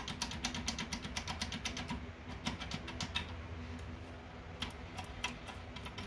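Foil pick being rocked in a Securemme K1 euro cylinder: rapid, light metallic clicking, thinning to scattered single clicks after about two seconds.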